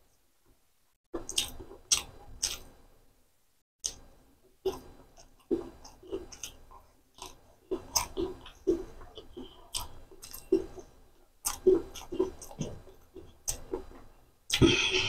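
A person chewing mouthfuls of hand-mixed white rice and chicken liver curry: wet mouth and lip noises in short irregular strokes, about one to two a second, starting about a second in.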